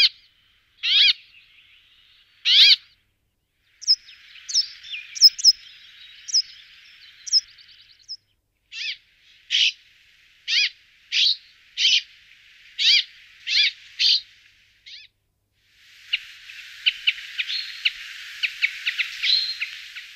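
Brambling calls: two drawn-out sweeping calls, then scattered short notes, then a run of about eight short calls at well over one a second, and near the end a quick flurry of chips. A faint hiss sits behind some stretches.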